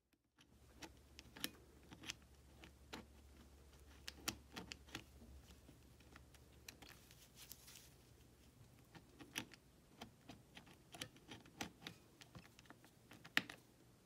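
Faint, irregular small clicks of a briefcase's thumbwheel combination lock as its number wheels are scrolled one notch at a time, with a bypass tool pressed in to feel for the dent at the right number. A louder click comes shortly before the end.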